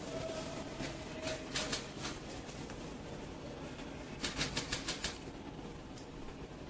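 Press photographers' camera shutters firing in quick bursts: a few clicks about a second and a half in, then a rapid run of about eight clicks between four and five seconds in, over low room noise.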